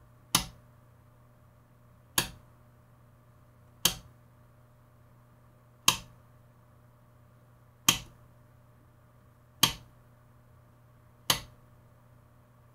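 Coarse-voltage rotary switch on a HeathBuilt EUW-16A voltage reference source clicking through its detents as the knob is stepped down one position at a time: seven sharp clicks about two seconds apart.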